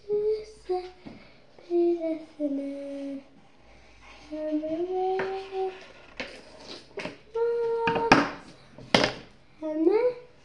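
A young girl singing softly to herself in short phrases of held and gliding notes. In the second half there are several brief sharp noises, the loudest two near the end.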